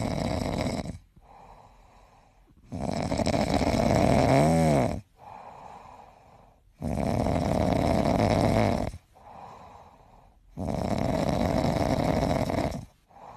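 Sleeping grey cat snoring: four loud, raspy snoring breaths about two seconds long, with quieter breaths between them, one of the loud ones breaking into a brief whistling tone.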